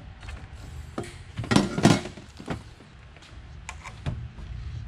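Knocks and clunks of a metal exhaust midpipe being handled and set on a scale: a few separate knocks, the loudest a quick cluster about one and a half to two seconds in.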